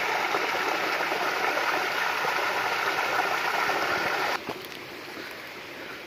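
Small waterfall splashing into a rock pool: a steady rush of falling water that cuts off suddenly about four seconds in, leaving a fainter steady hiss.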